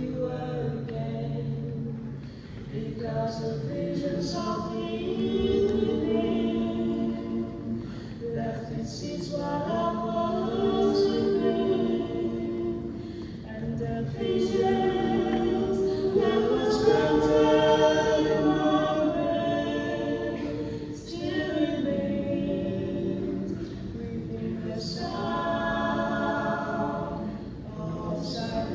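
A mixed group of young men and women singing a cappella in several voice parts through stage microphones, in phrases a few seconds long with brief pauses between them.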